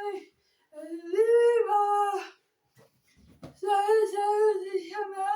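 A high-pitched voice singing wordless, drawn-out notes in two phrases with a short pause between them. A brief low knock falls in the pause.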